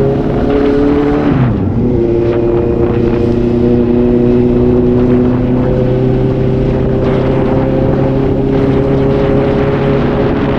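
Suzuki GSR750's inline-four engine running under riding load. The revs drop sharply about a second and a half in, then the engine pulls steadily at the lower pitch, slowly rising.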